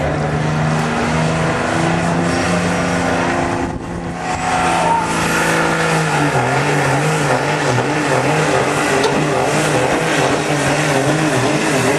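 Dodge Ram pickup's Cummins turbo-diesel held at steady revs, then throttled up about four seconds in with a rising turbo whistle as it pulls a weight sled at full throttle. Under the load its engine note wavers up and down.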